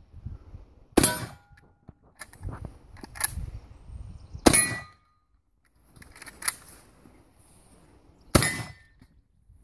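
Spencer lever-action repeating rifle fired three times, about three and a half seconds apart. Each shot is followed by the brief ring of a steel target being hit.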